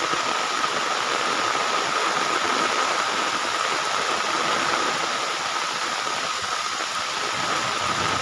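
Heavy rain falling steadily, a continuous even hiss, with a steady high-pitched tone running through it.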